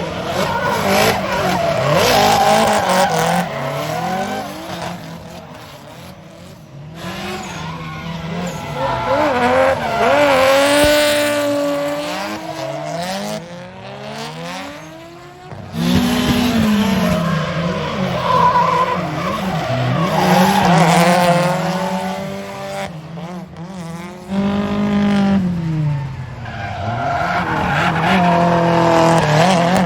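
Drift cars passing one after another, their engines revving up and down in repeated swells with tyres squealing as they slide. The sound builds and fades with each pass, loudest around the passes about two, ten, eighteen and twenty-eight seconds in.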